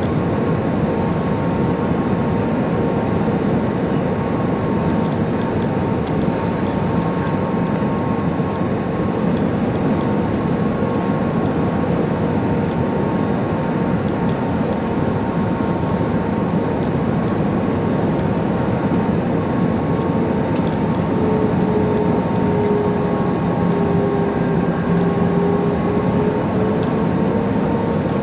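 Cabin noise inside an Airbus A320-214 airliner: the steady rush of its CFM56 engines and airflow, with a few steady whining tones. About two-thirds of the way through, one of the whines drops slightly in pitch and then rises again as the engine setting changes.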